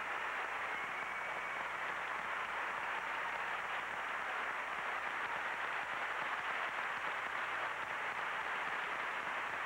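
Large crowd applauding steadily in a gymnasium, heard as an even hiss-like roar on an old videotape recording.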